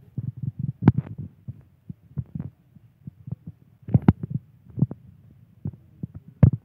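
Handling noise from a hand-held phone camera being moved: irregular low thuds, with three sharper knocks, about one second in, about four seconds in and near the end.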